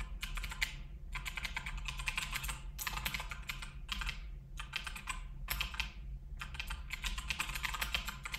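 Typing on a computer keyboard: a quick, uneven run of key clicks with brief pauses.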